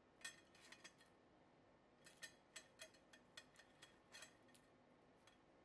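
Near silence broken by faint, scattered light clicks: a metal wire strainer tapping against a wire cooling rack as fried fish steaks are set down on it.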